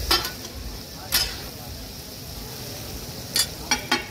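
Meat sizzling steadily on a large flat iron tawa griddle, with about five sharp clanks of metal spatulas striking the griddle as the pieces are stirred: one at the start, one about a second in, and three in quick succession near the end.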